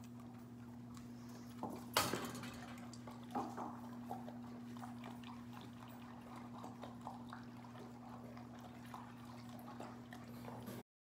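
A dog eating from its bowl on the floor: scattered small clicks and clinks, with one louder knock about two seconds in, over a steady low hum. The sound cuts off suddenly near the end.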